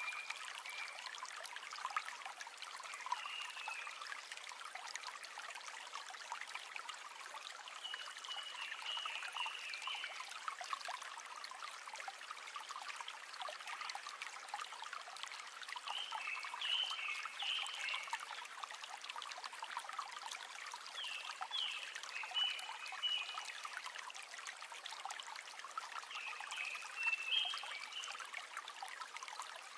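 River water trickling and splashing in a steady hiss. Clusters of short, high chirping animal calls come every few seconds.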